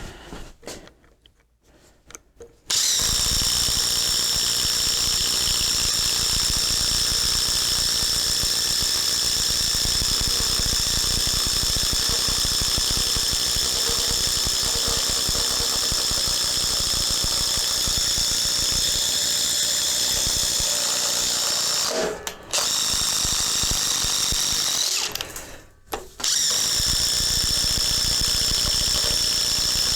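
Ryobi ONE+ HP brushless impact driver running on speed setting 3 under heavy, continuous load, hammering steadily with a high motor whine. It stops briefly twice near the end and picks up again each time.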